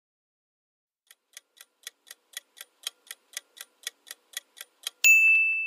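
Countdown timer sound effect: clock-like ticks about four a second, starting about a second in and growing louder, then a bright bell ding near the end signalling that time is up.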